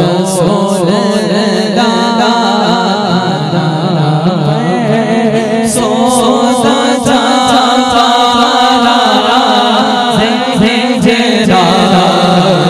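A man singing a naat, an unaccompanied devotional praise song, in long ornamented phrases into a microphone over a PA system, with a steady low hum held underneath the voice.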